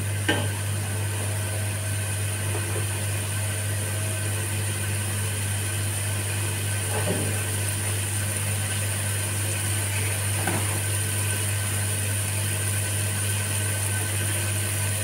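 Steady low mechanical hum from a running machine, with a wooden spatula knocking against the cooking pot once or twice at the very start.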